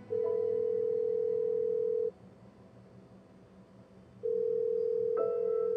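Telephone ringback tone of a call to 911 ringing through: two steady tones of about two seconds each, two seconds apart. Soft music notes come in near the end.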